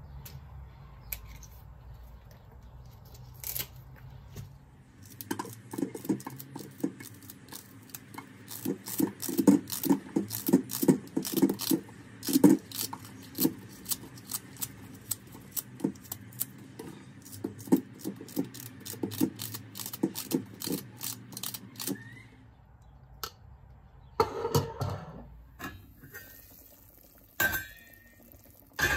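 Kitchen knife chopping leeks on a cutting board: a quick run of knocks, several a second, starting about five seconds in and stopping past the twenty-second mark. Near the end come a few louder metal clanks of a steel pot.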